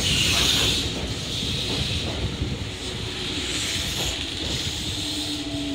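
Red Meitetsu electric commuter train rolling slowly along the platform, with steady rolling noise and hiss. A steady hum comes in near the end.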